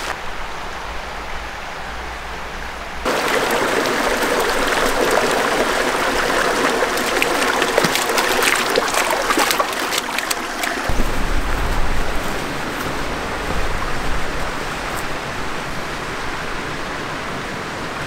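Water of a small mountain stream running and trickling over rocks. It grows louder about three seconds in and changes character about eleven seconds in, as the sound cuts between different stretches of the creek.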